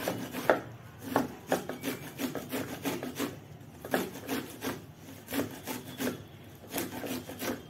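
A fresh corn cob being grated on a metal hand grater: repeated rasping strokes, about two a second, as the kernels are scraped off.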